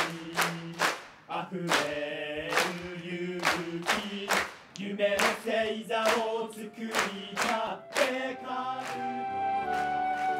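A cheering squad singing a cheer song together in long held notes, punctuated by sharp regular beats. About eight and a half seconds in, the singing gives way to soft sustained instrumental music.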